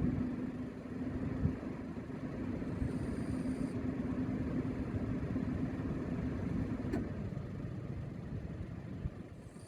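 Small propeller aircraft's piston engine running with a steady drone; about seven seconds in its pitch slides down, and the sound fades near the end.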